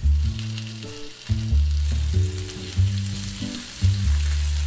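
Potato wedges sizzling in butter in a nonstick frying pan, a steady hiss. Background music with a deep bass line of held notes, changing about once a second, is louder than the frying.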